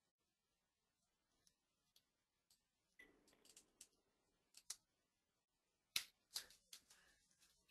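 Near silence broken by a handful of short, sharp clicks, scattered over the second half, the strongest about six seconds in.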